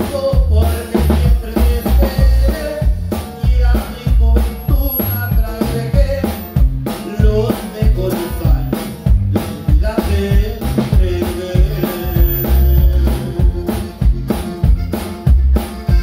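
A norteño band playing live, with the drum kit up close and loudest: bass drum, snare and cymbals keep a steady beat under the band's bass and melody.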